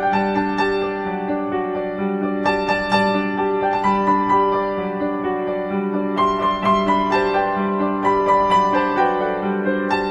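Background music: a slow piano piece, with sustained chords under a gentle melody.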